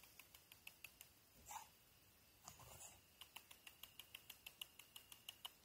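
Very faint sounds of a Jagdterrier puppy nosing a dead wild boar: two short sniffs, and a run of regular faint ticks, about five a second, that grow stronger in the second half.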